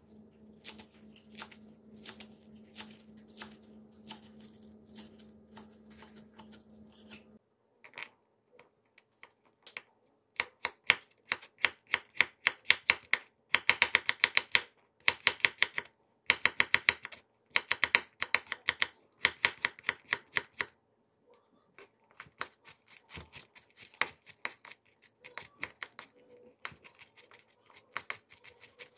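Kitchen knife chopping on a wooden cutting board, quick even strokes: first through green onions, then through garlic cloves, with the chops loudest in the middle. A faint low hum sits under the first several seconds and stops abruptly.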